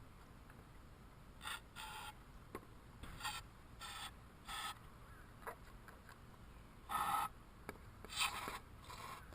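Aerosol can of carburetor cleaner sprayed into a lawn mower carburetor in about eight short hissing squirts, starting about a second and a half in. The engine is being primed with the cleaner so that a pull on the rope will show whether it fires.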